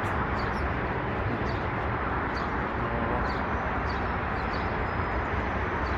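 Small birds chirping briefly now and then over a steady outdoor background noise.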